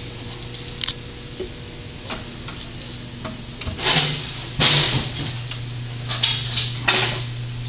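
A few sharp clicks and several short sliding, rubbing noises over a steady low hum, most of them between about four and seven seconds in.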